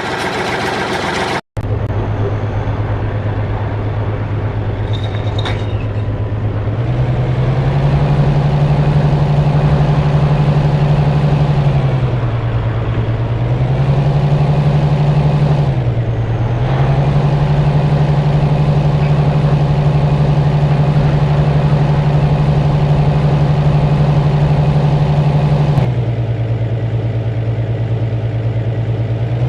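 A vehicle engine running steadily. Its speed rises about seven seconds in, dips briefly twice, and falls back to the lower speed near the end.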